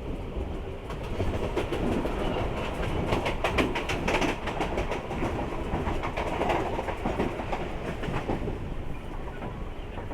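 Mumbai suburban local train running, its wheels clattering over the rail joints with a steady rumble and rattle; a run of rapid clacks comes about three to four seconds in.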